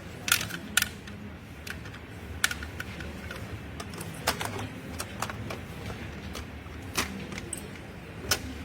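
Scattered light clicks and taps, a second or more apart, from the plastic and metal parts of a dismantled laptop being handled.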